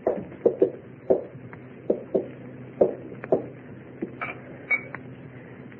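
Radio-drama sound effects: about a dozen light, irregular knocks and taps, with a brief higher clink a little after four seconds in.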